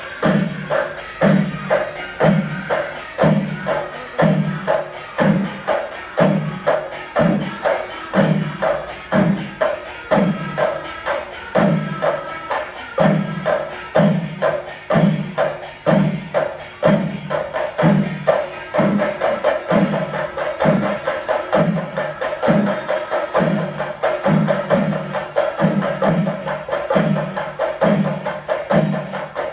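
Kerala chenda melam: chenda drums beating fast over a steady heavy stroke a little more than once a second, with clashing elathalam cymbals.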